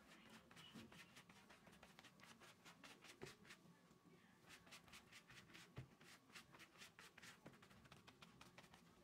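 Faint, quick strokes of a silicone pastry brush dabbing and sweeping over thin pastry sheets in a metal baking pan, several strokes a second, with two soft knocks about three and six seconds in.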